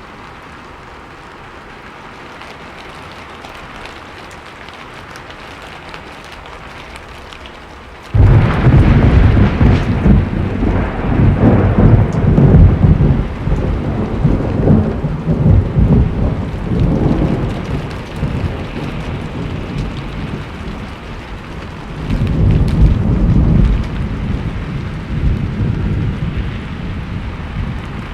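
Steady rain, then about eight seconds in a sudden loud thunderclap that rolls on as a long low rumble over the rain, swelling again later before easing off.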